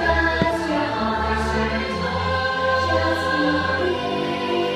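Fireworks-show soundtrack music with a choir singing sustained chords over the park's loudspeakers.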